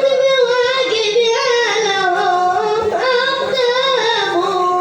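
A boy's solo voice chanting a devotional sama' melody, ornamenting each phrase with wavering turns and settling on a long held note near the end.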